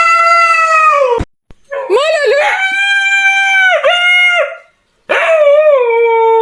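A dog howling: three long, drawn-out howls with short breaks between them. The pitch wavers at the start of each howl, and the last one slides down.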